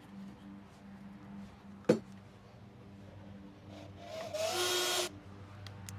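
A sharp knock about two seconds in, then a cordless drill/driver runs in a short burst of under a second near the end, spinning up as it drives a long drywall screw into pressure-treated 2x4.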